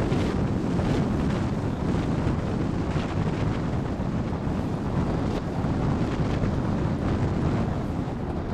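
Airflow of a hang glider in flight buffeting the microphone of a wing-mounted camera: steady, loud wind noise with a fluttering low rumble.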